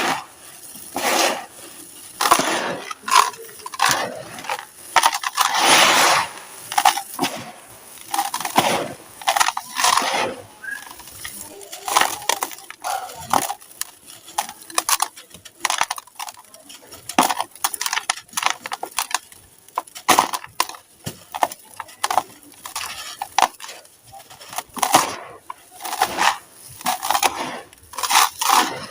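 Dry, gritty sand-cement chunks being crumbled and crushed by hand, giving a continuous irregular crunching and crackling with sharper, louder crunches every second or so.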